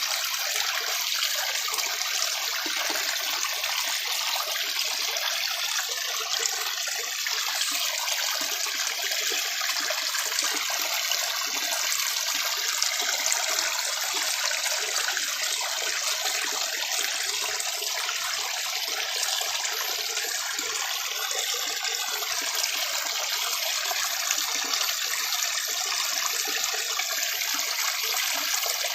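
Steady rushing of a flowing forest stream, an even running-water sound with no break or change.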